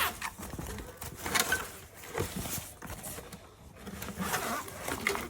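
Zipper of a ukulele gig bag being pulled open in several short pulls, with rustling of the bag's fabric.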